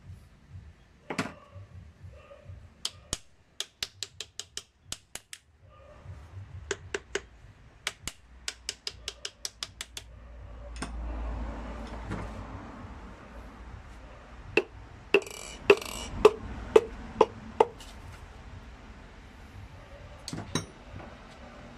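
Piston ring compressor clamped on a piston for a Toyota 4E-FE engine, clicking as it is worked in the first half. After that, a run of about seven sharp knocks, roughly two a second, as the piston is tapped down through the compressor into the cylinder bore.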